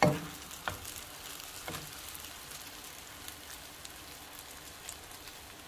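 Oil sizzling softly under keema rolls shallow-frying in a nonstick frying pan. A sharp clatter comes right at the start, with two lighter knocks in the next two seconds.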